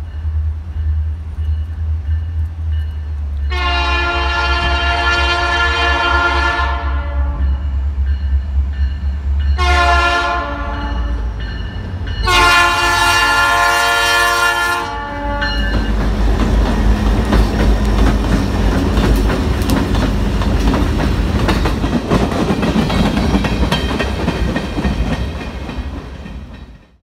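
Diesel freight locomotive horn sounding at a grade crossing: a long blast, a short one and another long blast, over the low rumble of the locomotives' engines. Then the locomotives and freight cars roll past with steady wheel and rail noise, which cuts off abruptly near the end.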